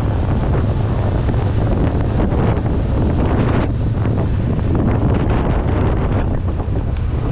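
Heavy wind buffeting on the microphone of a 2022 Honda CB500X motorcycle under way at road speed, over the steady drone of the bike's parallel-twin engine.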